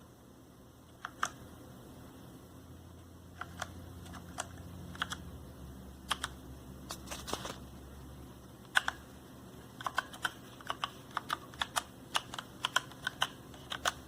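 Keys of a Redragon K556 mechanical gaming keyboard being pressed: a few scattered clicks at first, then quicker typing of about three or four keystrokes a second over the last few seconds.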